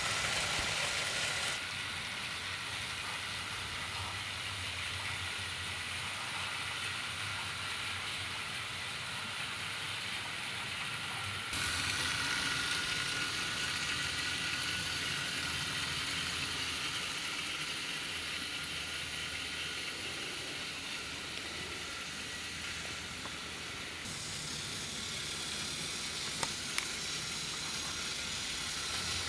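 OO gauge model steam locomotive (Bachmann J39) and its wagons running on the track: a steady, hissy whirr of the small motor and rolling wheels. The sound steps abruptly up and down a few times, and two small clicks come near the end.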